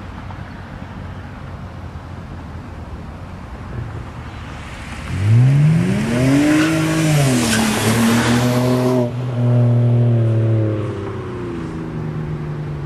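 2006 BMW 330i's N52 straight-six with a muffler-delete exhaust, accelerating past. The engine note climbs steeply, drops at an upshift of the automatic, climbs again, then holds a steady drone as the car goes by and fades near the end.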